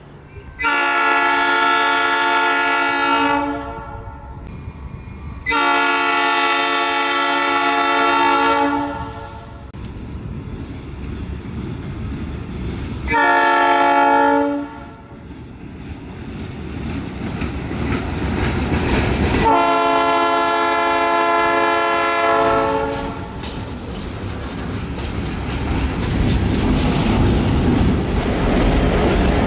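Multi-chime horn of a Herzog rail and tie train's power car sounding four blasts, long, long, short, long, over the low rumble of its EMD 567 diesel prime mover. Near the end the train rolls by, its wheels clacking louder over the rail joints.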